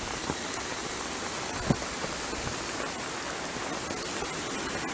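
Steady hiss of heavy hurricane rain, with one short tap about two seconds in.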